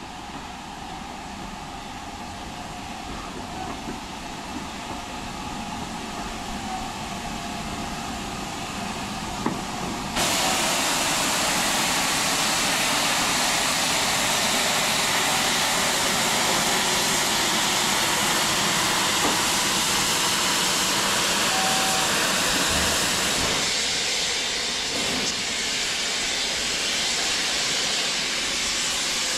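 LMS Black 5 steam locomotive 44806 hissing steam. The hiss grows steadily louder, then about ten seconds in a much louder, fuller hiss comes in suddenly and holds steady, easing a little near the end.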